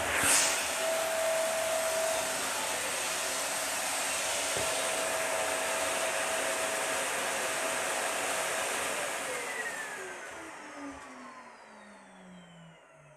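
Dyson vacuum cleaner running with its hose and brush tool, a steady suction drone with a brief louder rattle just after the start. About nine seconds in it is switched off and the motor winds down, its whine falling in pitch as the noise fades.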